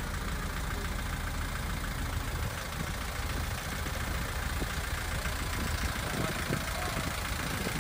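Engine of a 1926 Haynes fire truck idling with a steady low rumble.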